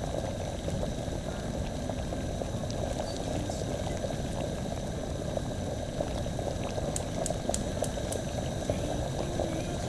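Steady bubbling noise with many small crackles, like liquid boiling. A few sharp high ticks come about seven to eight seconds in.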